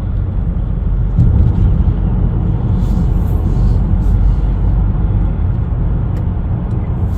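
10th-generation Honda Accord driving, a steady low rumble of road and engine noise that grows a little louder about a second in, with a few faint clicks.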